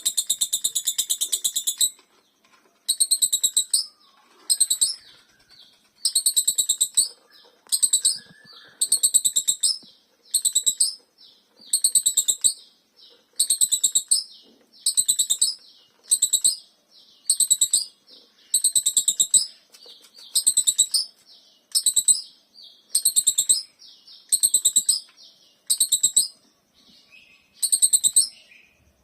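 Lovebird giving a shrill, rapid chattering trill in repeated bursts about a second long with short pauses between them: the 'ngekek' chatter that Indonesian lovebird keepers prize.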